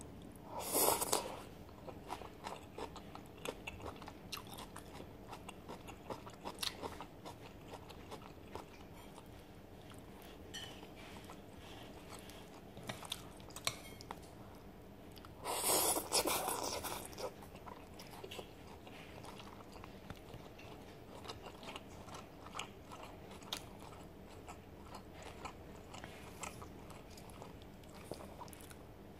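Close-up eating sounds of a bowl of noodles: steady chewing with small wet clicks and crunches, broken twice by a louder slurp of noodles, about a second in and again about halfway through.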